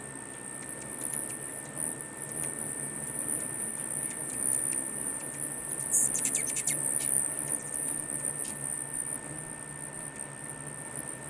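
Many hummingbirds buzzing on the wing around a feeder, under a steady high-pitched whine, with a rapid run of sharp high chips about six seconds in.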